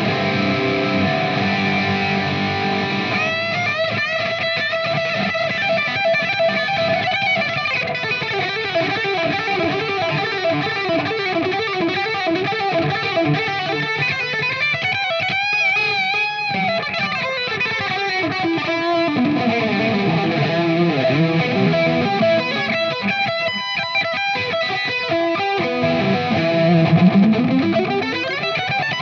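Electric guitar playing fast shred lead lines, with wide bends and vibrato in the middle, then a long falling pitch sweep and a rising slide in the last third.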